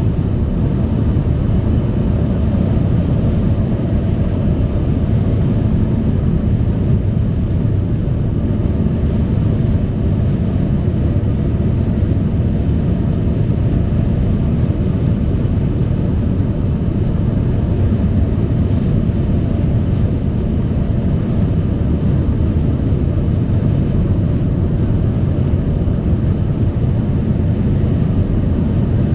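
Car driving along, a steady low rumble of tyre and road noise with engine drone.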